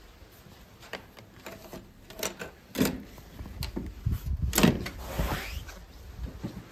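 Hotel room door being unlocked with its electronic card lock and opened: a run of sharp clicks and clunks from the lock and handle, then a louder clatter about four and a half seconds in as the door swings.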